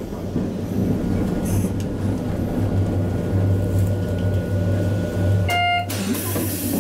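Hakodate city tram running, heard from inside the car: a steady low motor hum and wheel rumble, with a faint thin whine through the middle. About five and a half seconds in, a short electronic chime sounds.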